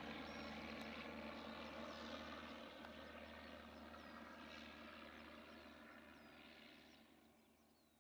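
Faint, steady drone of a distant propeller aircraft engine under open-air background noise, with a few faint high chirps, fading steadily away toward the end.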